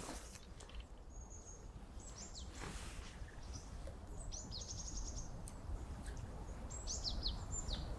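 Small birds chirping in short, high notes, with a quick trill about halfway through and a few falling chirps near the end, over faint low background noise.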